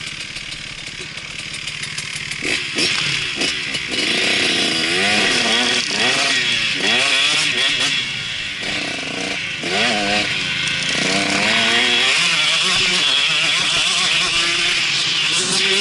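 Two-stroke KTM SX125 motocross engine revving hard through the gears, its pitch climbing and dropping again and again as the bike accelerates, with wind rushing over the onboard microphone.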